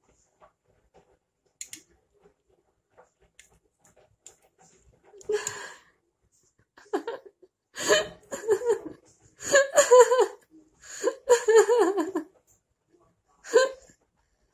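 A person laughing in several short, choppy bursts, starting about five seconds in after a few faint clicks.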